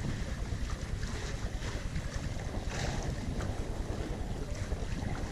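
Wind buffeting the microphone aboard a sailing catamaran under sail, a steady low rumble, with water rushing along the hulls and a brief louder hiss about three seconds in.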